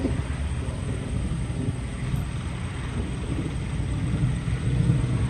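Wind buffeting the microphone outdoors: a low, uneven rumble that rises and falls in gusts, strongest about four to five seconds in.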